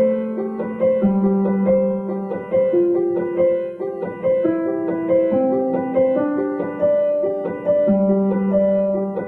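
Background piano music, slow held notes and chords with no fireworks bangs heard.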